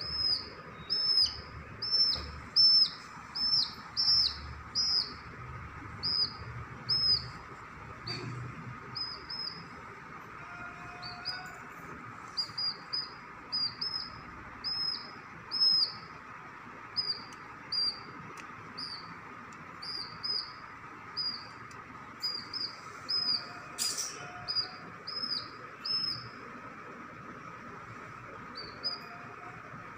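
Chicken chick peeping over and over: short, high, falling peeps about one or two a second, loudest in the first few seconds, with a brief lull about a third of the way in.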